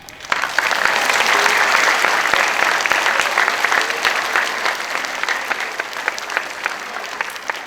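Audience applause: many people clapping, starting abruptly just after the music stops and slowly thinning out to scattered claps near the end.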